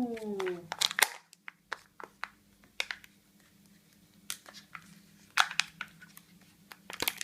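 A Kinder Joy egg being unwrapped and opened by hand: scattered crinkles and sharp clicks of foil and plastic, with bunches of them about a second in and again near the end.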